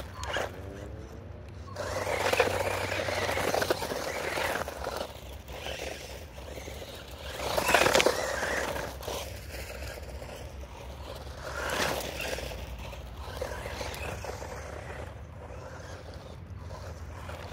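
XINLEHONG 9115 electric RC monster truck driving off over dry dirt: its tyres scrape and scrabble on the loose ground in bursts, loudest about two, eight and twelve seconds in, growing fainter as it drives away.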